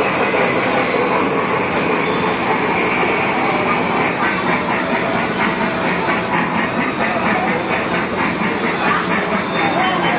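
Thomas the Tank Engine ride-on mini train running, a steady rumbling with a fast, regular clacking rhythm that comes in about four seconds in.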